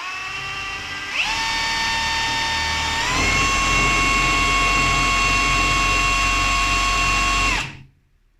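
Bosch GSB 18V-150 C cordless brushless drill drilling a hole, its motor whine stepping up in pitch twice, about a second in and again about three seconds in, as the speed rises. The whine holds steady, then winds down and stops near the end.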